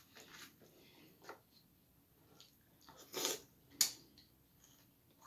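A person chewing a mouthful of cereal in milk, with soft scattered mouth sounds and small clicks. About three seconds in comes a short louder noise, then a sharp click of the metal spoon against the glass bowl.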